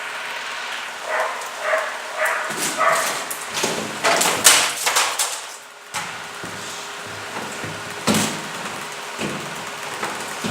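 Water splashing as it is thrown into a refrigerator being defrosted, over the steady hum of an electric fan. A dog barks a few short times in the first few seconds.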